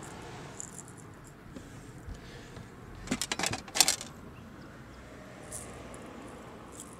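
Brief clatter of sharp clicks and rattles, lasting about a second a little past the middle, as a freshly landed bass, the landing net and the lure are handled on the boat deck.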